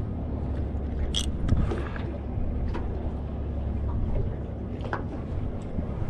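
Boat engine idling with a steady low hum, with a few faint clicks and knocks over it.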